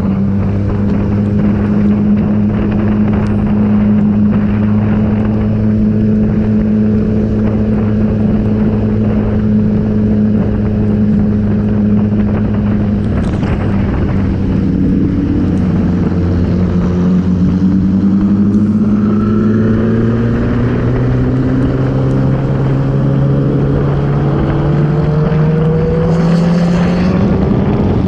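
Kawasaki ZX-10 inline-four engine heard onboard at a steady cruise, its pitch dipping slightly mid-way and then rising steadily over the last ten seconds as the bike accelerates, over a constant rush of wind and road noise.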